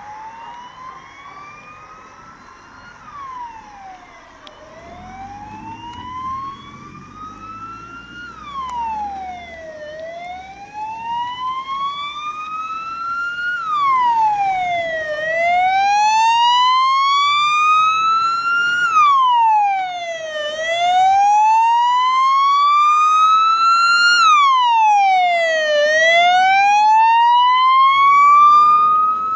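Emergency vehicle siren on a slow wail: each cycle climbs for about four seconds and drops back quickly, roughly one cycle every five seconds. It grows much louder about halfway through as the vehicles approach.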